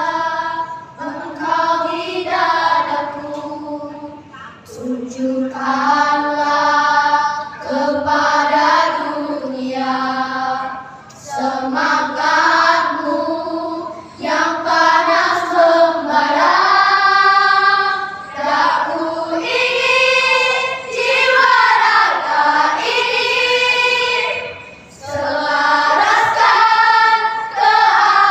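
A choir singing, phrase after phrase, with short breaths between the phrases.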